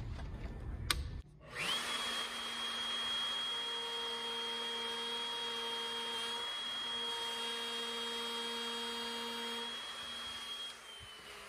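Handheld wood router switched on, its motor whining up to speed about a second and a half in and running steadily, then switched off near the end, the whine falling slowly as the bit coasts down.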